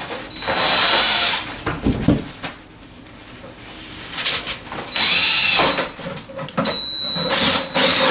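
Cordless drill cutting a 2.5-inch hole through a sheet-metal air-duct plenum, running in three bursts with a quieter pause in the middle, a high whine riding on the cutting noise.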